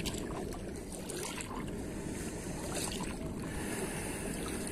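Wind buffeting the microphone as a steady low rumble, over small waves lapping in shallow sea water.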